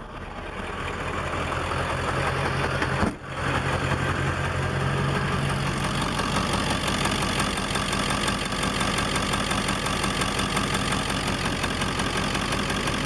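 Ford 7.3 L Power Stroke turbo-diesel V8 idling steadily through a turbo-back 4-inch straight-pipe exhaust. The idle sounds even, though the truck shakes hard: Ford's cylinder balance test reported cylinders 5 and 8 still misfiring after new injectors.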